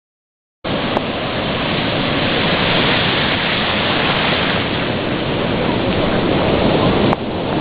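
Loud, steady rushing noise that starts abruptly about half a second in, with a brief click soon after and a short dip near the end.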